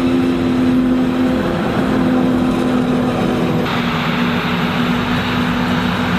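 Heavy machine's engine running steadily with a droning hum; a little past halfway through, the sound changes abruptly and grows noisier.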